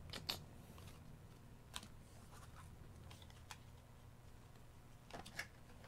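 Faint, scattered clicks and taps of trading cards and a cardboard booster box being handled, a few isolated ones and then a small cluster near the end, over a low steady room hum.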